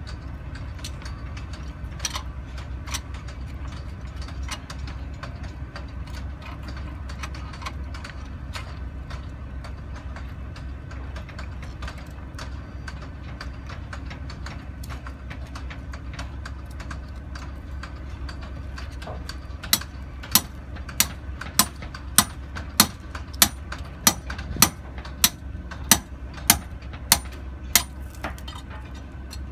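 Crawler crane's diesel engine idling steadily with a low rumble, with scattered light clicks. About two-thirds of the way in, a quick, even run of about fifteen sharp knocks, a little under two a second, stands out as the loudest sound.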